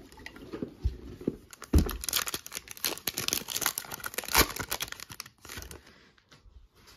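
Foil wrapper of a Panini Monopoly Prizm trading-card pack torn open and crinkled by hand, a dense crackling rustle over a few seconds that dies away near the end.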